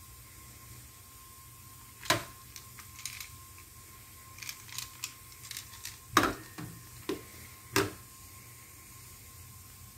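Plastic airsoft guns being handled: a string of sharp clacks and knocks, about nine of them, as a pistol is picked up, turned and set down against the rifle and the wooden table, the loudest a little past halfway.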